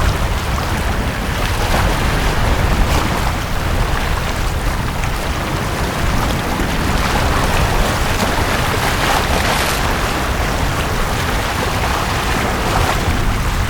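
Sea waves washing onto a beach, a steady wash of surf that swells for a few seconds about halfway through, over a constant low rumble.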